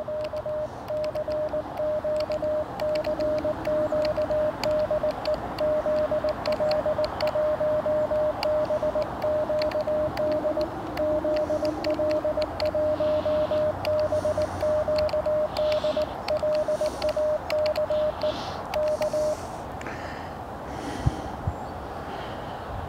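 Morse code (CW) from a portable ham radio transceiver: a single steady tone of about 600 Hz keyed in a quick run of dots and dashes, stopping a few seconds before the end, over a steady background hiss.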